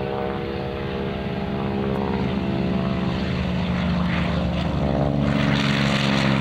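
FG-1D Corsair's Pratt & Whitney R-2800 radial engine and propeller running steadily on its takeoff run, growing louder, with a rush of propeller noise building about five seconds in.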